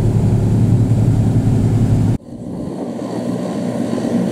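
Boat engine running steadily with a strong low drone. About halfway through, the sound drops suddenly and comes back as a quieter steady hum.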